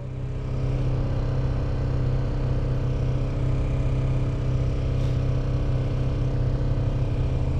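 Kawasaki Ninja 250 motorcycle's parallel-twin engine running steadily at low revs.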